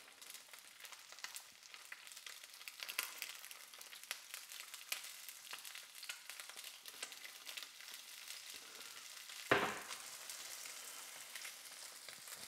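Bass fillet frying skin-side down in hot oil in a frying pan: a steady sizzle full of small crackling pops. A single louder knock comes about nine and a half seconds in.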